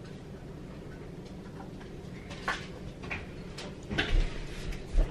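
Light clicks and knocks from a coffee maker's parts being handled while it is emptied for refilling, about five in the last half, the last two loudest.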